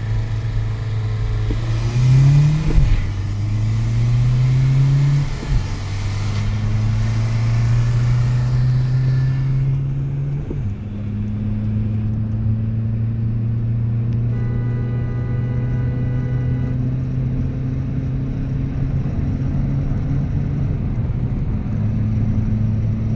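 Seat Ibiza 1.9 TDI four-cylinder turbodiesel at full throttle, heard from inside the cabin. The engine note climbs and drops at three gear changes in the first eleven seconds or so, then pulls steadily in a high gear with a slow rise. A rushing hiss fills the first ten seconds and cuts off, and partway through a separate higher tone sounds for about two seconds.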